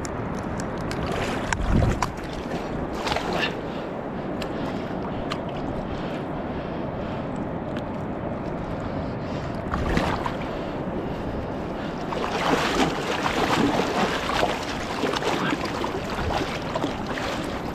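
Water sloshing and splashing as a freshly killed, bleeding fish is swished and rinsed by hand in shallow lake water, over steady wind noise on the microphone. The splashing is heaviest for a few seconds in the second half.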